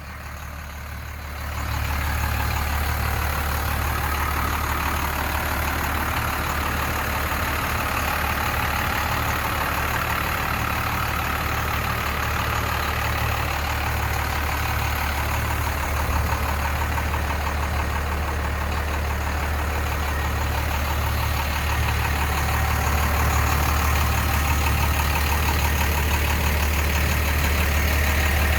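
1991 Dodge Ram 250's Cummins 12-valve 6BT inline-six turbo diesel idling steadily, a little louder over the last several seconds.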